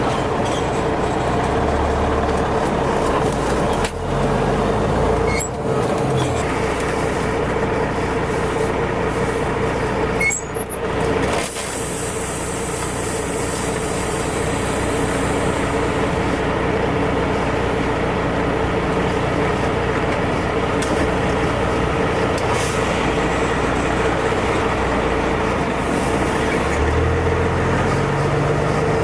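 Straight-piped Caterpillar C15 diesel engine of a semi truck, loud and running steadily with no muffler, its low note shifting near the start and again near the end. A hiss of air comes in about twelve seconds in and lasts a few seconds.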